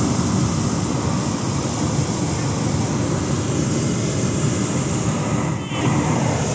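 Hot air balloon's propane burner firing in a long blast: a loud, steady rushing noise, with a short dip about five and a half seconds in.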